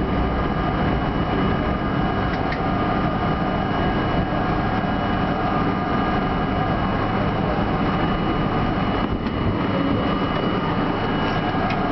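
R32 subway car running on underground track: a steady rumble of wheels and running gear on the rails, with a few thin steady high tones above it.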